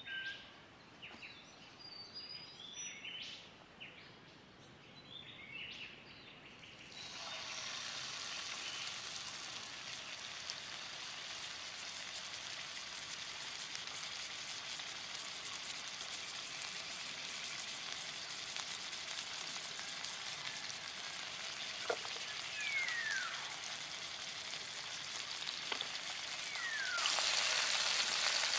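Beef steak sizzling in hot oil in a nonstick frying pan on a small portable gas stove. The sizzle starts suddenly about seven seconds in, as the meat goes into the pan, holds steady, and gets louder near the end.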